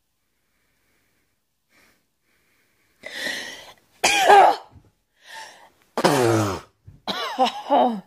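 A woman's forced sneezes, brought on by tickling inside her nostril: about three seconds in a drawn-in breath, then a loud sneeze, and about two seconds later a second loud sneeze with a falling voice, followed by short voiced sounds.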